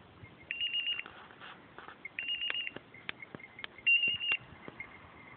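A hunting-dog beeper collar sounding three short high electronic beeps about a second and a half apart, each a rapid train of pulses, with a few sharp clicks between them.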